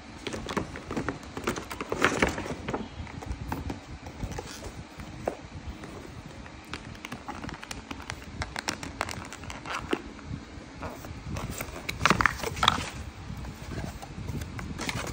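Paper and cardboard packaging being handled and opened by hand: rustling, crinkling, taps and scrapes of a paper shopping bag and a cardboard shipping box. The rustling is loudest about two seconds in and again around twelve seconds.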